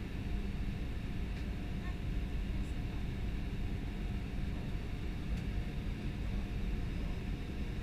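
Steady cabin noise inside an Airbus A320 airliner during descent: engine hum and airflow rush, with a faint steady tone over it.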